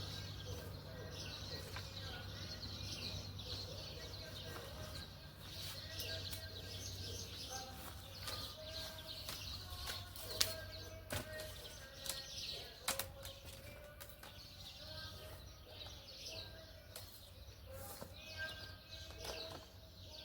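Small birds chirping and twittering, with other pitched calls mixed in, over a low steady hum that fades away about halfway through.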